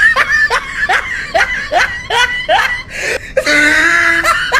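A person laughing in quick short bursts, about three a second, broken about three and a half seconds in by a longer held cry.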